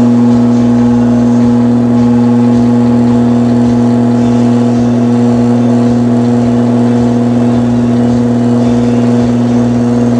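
Repaired vintage Berns Air King box fan motor, out of its fan, running steadily on the bench with a loud, even electrical hum. The rewound motor is running normally on a retest with its fuse bypassed.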